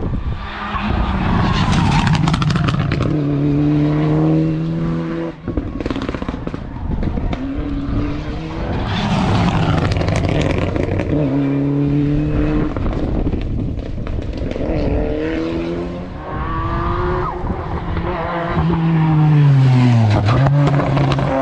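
Race car engine revving hard up a hillclimb, its pitch climbing and then dropping sharply at each upshift, several times in a row; near the end the revs fall and then climb again.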